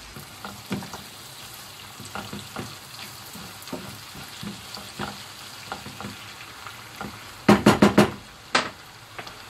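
Diced lamb liver and almonds sizzling in butter in a frying pan, with a spoon stirring through them and clicking against the pan. Near the end comes a quick run of about five loud knocks, then one more.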